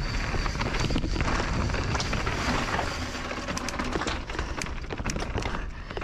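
Mountain bike going down a rocky downhill trail: tyres rolling and crunching over rock and dirt, with the bike clattering in quick irregular clicks and wind rushing on the microphone.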